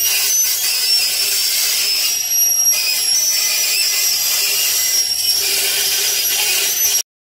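Screw flight cold rolling machine running, rolling metal strip into a spiral conveyor flight: a steady high-pitched whine over a hiss that cuts off suddenly near the end.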